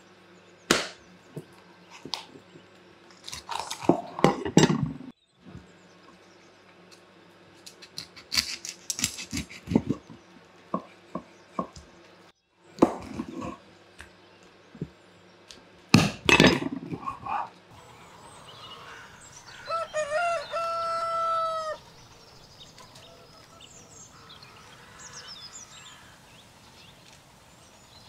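Large kitchen knives cutting and chopping raw chicken on wooden chopping boards, in sharp knocks and taps, the loudest a few seconds in and again about sixteen seconds in. About twenty seconds in, a rooster crows once, a call that rises and is held for about two seconds.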